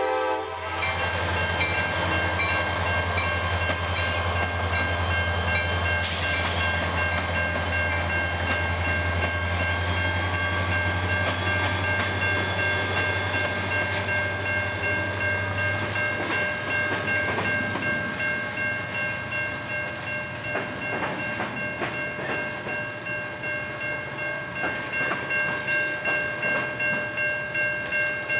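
Freight train passing: the Norfolk Southern diesel locomotive's engine hum fades away over the first half as the train cars roll by, with a steady high-pitched squeal of steel throughout. In the second half the wheels clack over the rail joints in a regular rhythm, about one beat a second.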